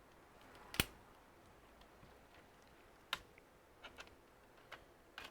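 A few sharp plastic clicks, the clearest about a second in and just after three seconds, then fainter ticks: a Dell Inspiron 5558 laptop's cover being prised out of its clips.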